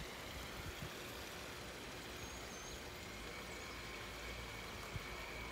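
Steady background hiss with no clear source, broken only by a couple of faint high chirps and a soft knock near the end.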